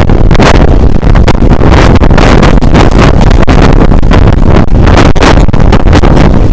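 Loud wind buffeting the microphone of a camera held outside the window of a moving passenger train, over the train's running noise.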